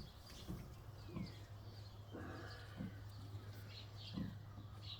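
Sow giving short, low grunts about every second and a half, with faint high chirps and a steady low hum underneath.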